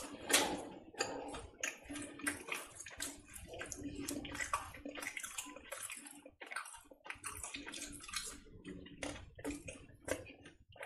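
Syrup-soaked jalebi being torn apart and squeezed between fingers close to the microphone: a run of irregular, wet, sticky crackles, the loudest just after the start.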